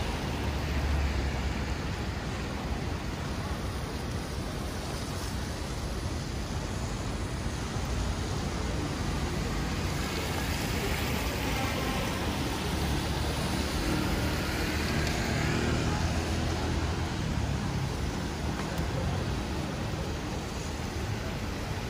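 Steady city road traffic: cars passing with engine rumble and tyre hiss on rain-wet pavement.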